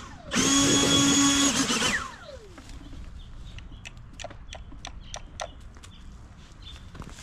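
An electric power tool's motor whining at high speed, cutting out briefly at the start and starting again, then switched off about two seconds in and winding down with a falling whine. After it, only faint scattered clicks.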